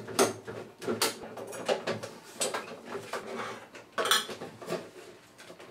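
Clicks, knocks and rattles of a screwdriver on casing screws and the boiler's front panel being handled and pulled down, with a louder clack about four seconds in.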